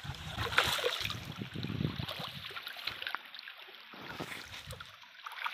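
Pond water sloshing and splashing as a wet cast net is gathered up by someone wading in the shallows, with scattered small splashes and drips. A low rumble of wind on the microphone fills about the first half, then things go quieter.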